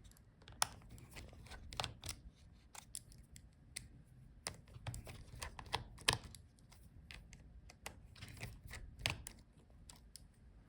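Small screwdriver removing tiny screws from a laptop's metal cable bracket: faint, irregular clicks and ticks of the bit and screws.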